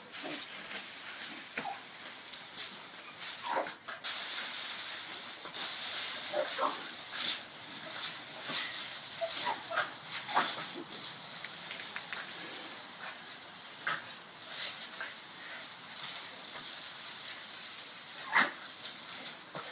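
Garden hose spray nozzle hissing steadily as its jet of water hits brick paving, with two small dogs giving scattered short barks and yaps as they chase the spray; the loudest bark comes near the end.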